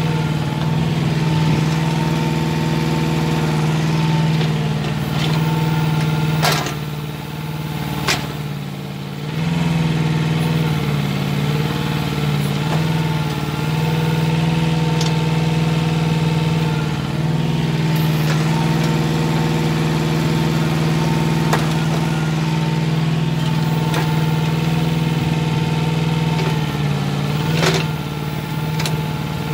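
Hanix mini excavator's engine running steadily while it digs. Its note sags and wavers for a few seconds about seven seconds in, and a few sharp knocks come through, one of them near the end.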